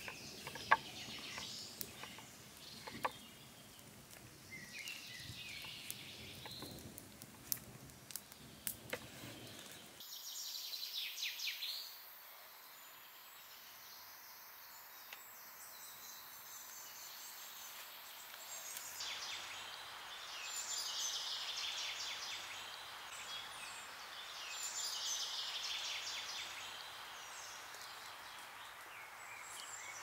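Forest ambience with several songbirds calling on and off, plus a few sharp clicks in the first ten seconds.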